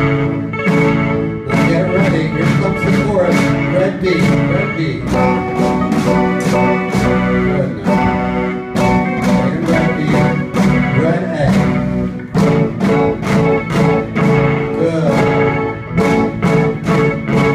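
A rock band of young children playing live: a drum kit keeps a steady beat with cymbal hits over electric guitar and keyboard.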